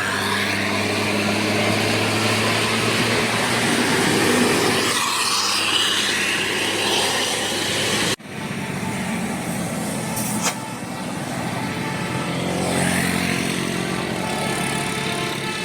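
Heavy bus engines running amid traffic noise, in two stretches joined by a sudden cut about eight seconds in, with a single sharp click shortly after.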